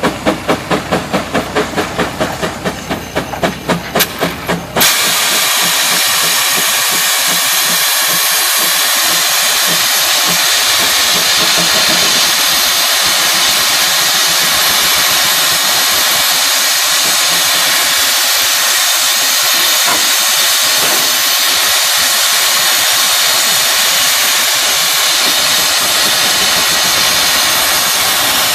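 Aultman-Taylor steam traction engine working under load with a quick, even rhythm of exhaust chuffs, which stops abruptly about five seconds in and gives way to a steady, loud hiss of escaping steam.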